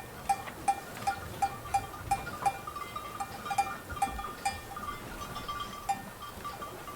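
Cowbell clanking over and over, about two to three strikes a second in an uneven rhythm, as a cow moves.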